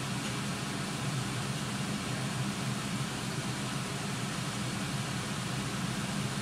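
A fan running steadily: an even low hum with a hiss over it, unchanging throughout, with no distinct knocks or clatter.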